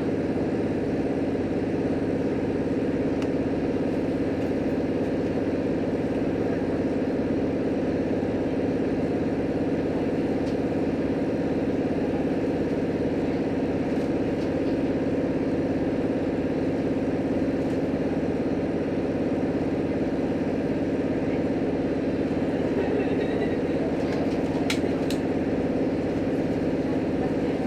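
Cabin running noise of a JR Hokkaido H100 diesel-electric railcar under way: a steady drone of engine and motors with a constant low hum, and a couple of sharp clicks about 25 seconds in.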